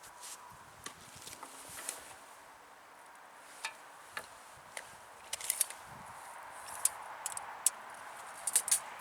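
Scattered small clicks and clinks of tools and metal being handled, sparse at first and more frequent in the second half, over a faint steady hiss.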